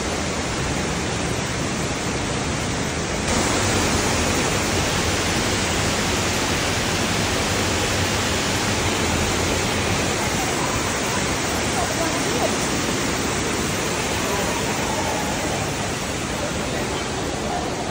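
Steady rush of a mountain stream's water, an even hiss that grows a little louder about three seconds in.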